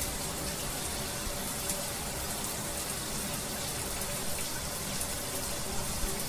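Shower running: a handheld shower head spraying water in a steady hiss.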